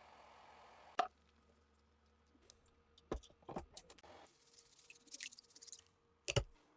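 Handling sounds: four sharp clicks and knocks, spread unevenly, with light scratchy rustling between the last two.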